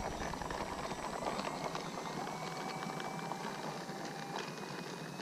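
Faint steady whine of a battery-powered FMS A6M Zero RC plane's electric motor at low throttle while it taxis, starting about two seconds in and cutting off a couple of seconds later, over a steady crackling hiss.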